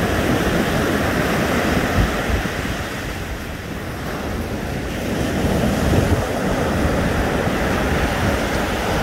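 Ocean surf breaking and washing up a sandy beach, easing off about three seconds in and building again about six seconds in, with wind rumbling on the microphone.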